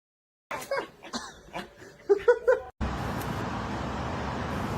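Short bursts of a person laughing, cut off suddenly, then a steady rushing noise.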